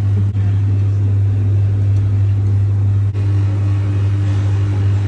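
A loud, steady low hum with faint background noise, briefly dropping out twice, once about a third of a second in and once about three seconds in.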